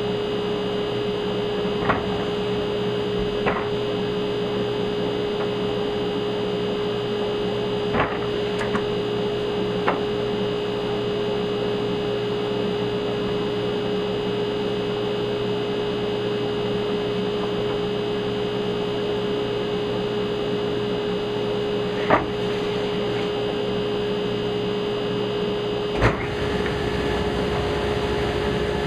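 Steady electric machine hum with one strong constant tone, broken by a few sharp clicks or knocks spread through it; the hum drops off right at the end.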